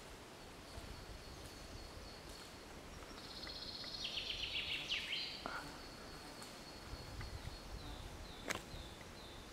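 Beech-forest ambience: a songbird sings a short phrase of rapid, high, falling notes about three seconds in, over a thin steady high tone and a low rumble. A single sharp click comes near the end.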